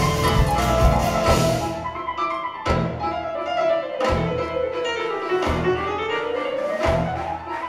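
Live jazz-funk band of horns, guitars, keyboards, congas and drum kit playing together. About two seconds in, the full band drops out to sparse accented hits roughly every second and a half, under a tone that slides down and then back up.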